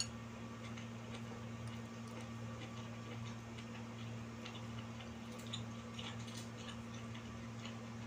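Faint, irregular small clicks and mouth smacks of someone eating a cooked quail by hand, chewing and picking the meat off a plate, over a steady low hum.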